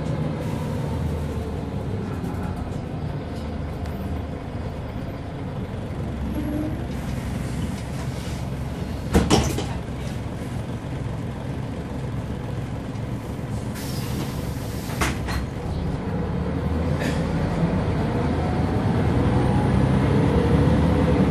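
Scania L94UB bus with ZF gearbox driving, heard from inside the saloon: steady engine and drivetrain running, with a sharp rattle about nine seconds in and a short air hiss around fourteen seconds. Near the end the engine pulls harder with a rising whine as the bus accelerates.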